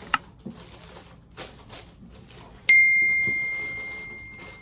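Subscribe-button sound effect: a short mouse click, then about two and a half seconds in a single bright bell ding that rings out and fades over about two seconds. Tissue paper rustles quietly underneath as it is pulled from a shoebox.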